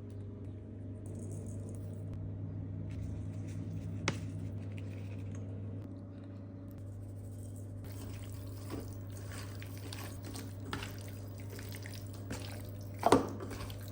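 Water splashing and dripping, with irregular taps and clicks over a steady low hum. There is a sharp click about four seconds in and a louder knock near the end.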